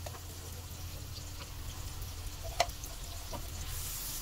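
Chopped onion and garlic frying gently in melted butter in a wok, a faint sizzle that grows a little louder near the end, over a steady low hum. One sharp click stands out a little past halfway.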